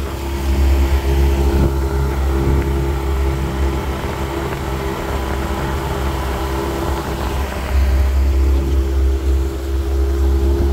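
Outboard motor running steadily under way, with the rush of water from the boat's wake. The sound holds an even pitch, without revving up or down.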